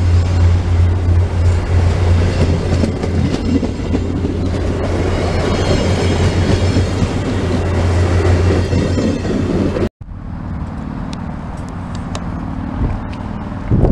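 VIA Rail passenger train passing close at speed: a loud steady rush of coaches and wheels on the rails, with some clacking over the rail joints. It cuts off suddenly about ten seconds in, leaving a much quieter steady noise.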